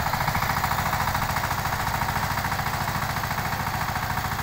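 Rhino tractor engine running steadily in a rapid, even chugging while puddling a paddy field.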